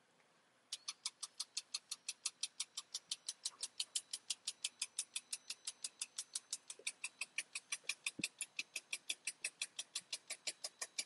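Rapid, very even ticking, about five clicks a second, starting about a second in as the robotic welding cell's program starts running in simulation mode, with no welding arc.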